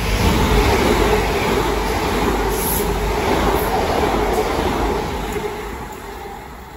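Southern Class 377 Electrostar electric multiple unit passing through the station at speed without stopping: wheel-on-rail and air noise that comes in suddenly, stays loud for about five seconds, then fades as the train draws away.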